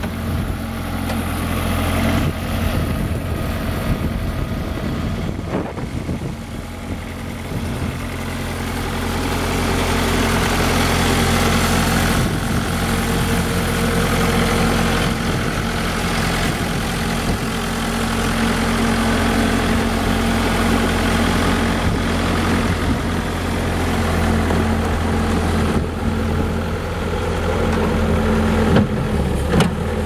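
Bobcat S185 skid steer loader's diesel engine running steadily, growing louder about ten seconds in.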